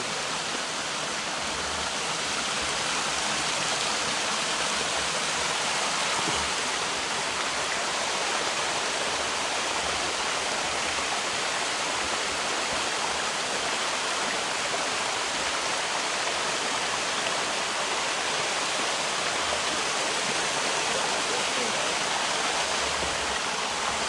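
Steady rushing of water: a rocky mountain stream tumbling over boulders below a small waterfall.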